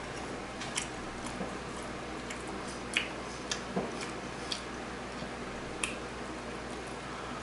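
Close-miked eating sounds, chewing chicken curry and rice, with scattered wet clicks and smacks from the mouth at irregular intervals over a steady background hum.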